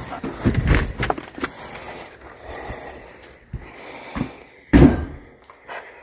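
Irregular crunching thumps in icy, crusted snow, with one heavy thump a little before the end.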